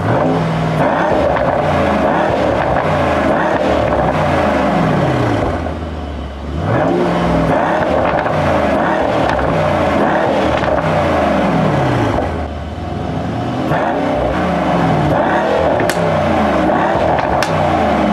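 Mercedes-AMG E63 S 4Matic+'s twin-turbo V8 being revved repeatedly while standing, heard at its quad exhaust: the revs climb and fall over and over, easing back twice, about six seconds in and about twelve seconds in.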